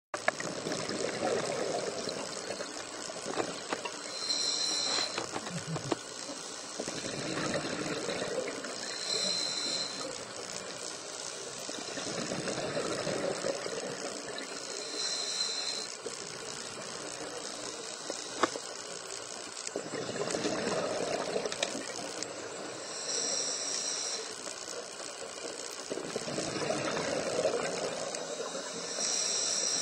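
Scuba diver breathing through a regulator underwater: about five breaths, each a gush of exhaled bubbles lasting a couple of seconds followed by a short hissing inhale, roughly every five to six seconds. A single sharp click comes about 18 seconds in.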